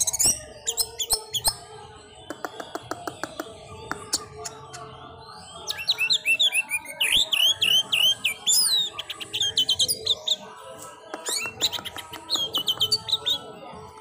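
Orange-headed thrush singing in fast bursts of quick, sliding whistled notes, busiest from about six to nine seconds in and again near the end.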